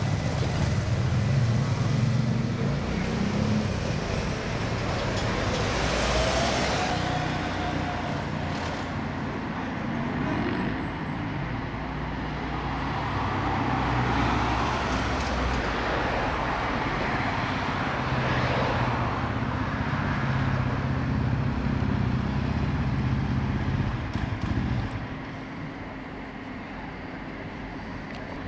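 Motorcycle and car engines running and passing by, with slow swells as vehicles go past; the engine noise falls away suddenly about 25 seconds in.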